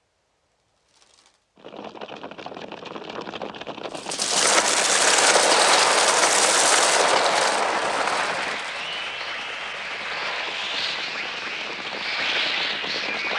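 A flock of crows attacking: a dense mass of wingbeats and caws, created electronically for the film, rising suddenly out of near silence about a second and a half in and jumping to full loudness about four seconds in. Wavering high cries, children screaming, come through in the second half.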